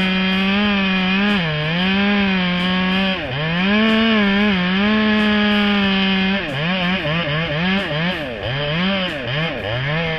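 Chainsaw cutting wood. For about six seconds the engine runs at high speed, dipping in pitch as it bogs into the cut and picking up again. After that it goes in quick short revs, several a second.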